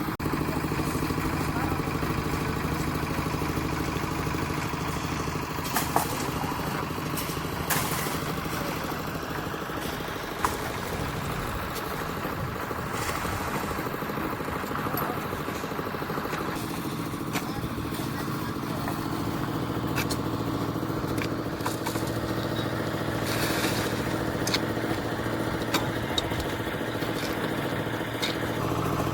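Concrete mixer's engine running steadily, with a few sharp clacks about six, eight and ten seconds in.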